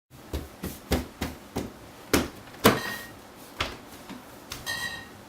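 A run of about ten separate knocks and clicks over roughly four seconds, unevenly spaced. Two of them, near the middle and near the end, leave a brief ringing tone.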